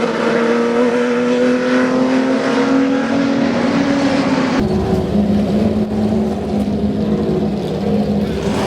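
BMW M1 Procar's straight-six racing engine running hard, its note climbing slowly as it accelerates. About halfway through, the sound changes abruptly to a lower, steadier engine note with far less treble.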